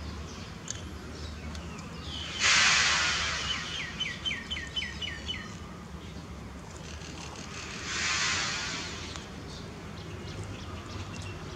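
A bird calling a quick run of about nine falling chirps, a few a second, over a steady outdoor hum. Twice a noisy rush cuts in: suddenly and loudest about two seconds in, and more softly near eight seconds.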